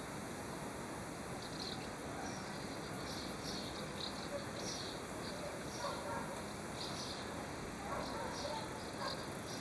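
Outdoor ambience: short high-pitched chirps repeating irregularly over a steady hiss, with faint distant voices.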